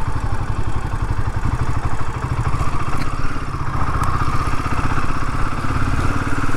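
Royal Enfield Himalayan 450's single-cylinder engine running steadily at idle, its firing pulses even, with no revving.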